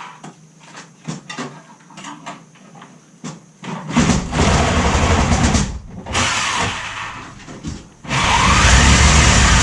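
A few light knocks, then a reciprocating saw (Sawzall) running in three bursts from about four seconds in, cutting to free a window frame that is nailed in place.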